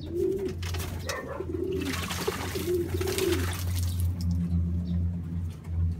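Racing pigeons cooing repeatedly as they bathe in a basin of water, with a burst of splashing and wing-flapping about two seconds in. A steady low hum runs underneath.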